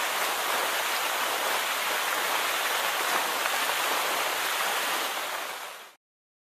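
Steady rushing noise of running water that fades out near the end and stops.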